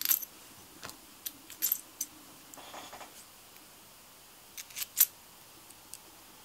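Small metal parts of a carburettor and velocity stack clicking and clinking together as they are handled and fitted. Scattered sharp clicks, the loudest about five seconds in, with a brief rustle near three seconds.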